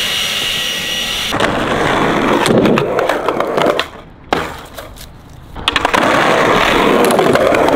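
Skateboard wheels rolling fast over rough pavement, with clicks and clacks from the board. The rolling is loud for a couple of seconds, drops away, then comes back loud in the second half.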